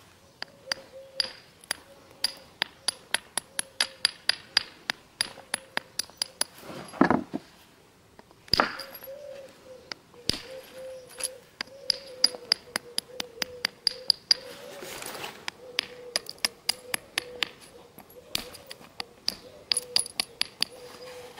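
Flint being knapped: a run of small, sharp clicks, a few a second, each with a short high ring, as the edge of a flint point is struck or pressed, with two heavier knocks around seven and eight and a half seconds in.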